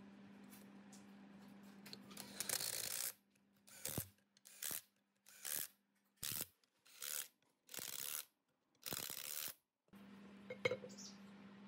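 A quick run of short scraping and rubbing noises, about seven in all, from metal air-compressor pump parts being handled and fitted together, each one cut off abruptly. A faint steady hum lies beneath before and after them.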